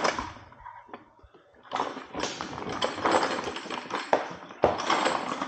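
Rustling and light clattering of bike parts and hardware being handled, in two stretches, the first about two and a half seconds long, the second about one second near the end.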